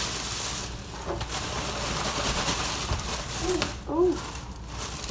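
Plastic oven bag crinkling and rustling as it is shaken to mix the seafood and seasoning inside.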